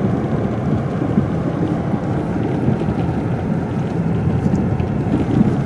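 A car driving through snow on town streets: a steady, low rumble of engine and tyres.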